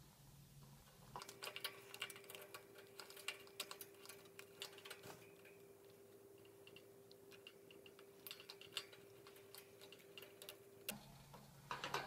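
Plastic zip ties being pulled tight, their ratchets giving faint, irregular runs of small clicks.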